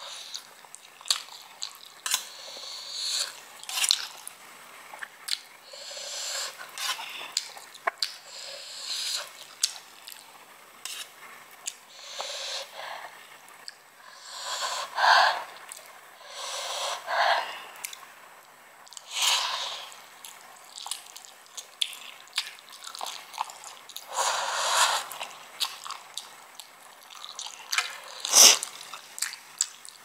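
A person eating spicy stir-fried instant noodles: irregular wet chewing, mouth smacks and short slurps, with one sharp click near the end.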